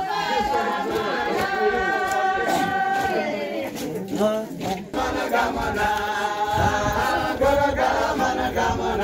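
A group of voices singing unaccompanied, in unison, a dance song with long held notes. The singing thins out briefly about four seconds in and then picks up again.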